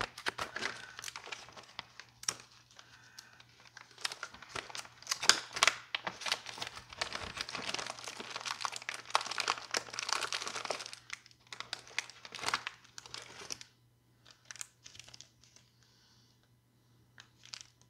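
Plastic zip-top bag and the wrapped first-aid items inside crinkling and rustling as they are opened and handled. Dense for about eleven seconds, then sparse crinkles, a quiet stretch and a few more near the end.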